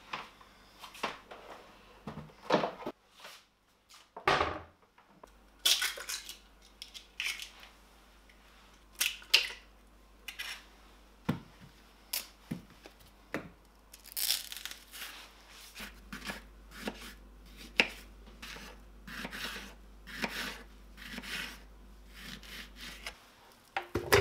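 A string of separate kitchen handling sounds: knife cuts through bananas onto a wooden cutting board, and ingredients dropped and tipped into a plastic blender jar, with short taps, knocks and rustles one after another.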